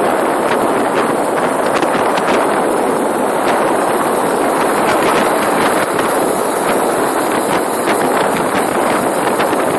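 Small brush-cutter engine fitted to a bicycle, running steadily under way, with wind noise on the microphone.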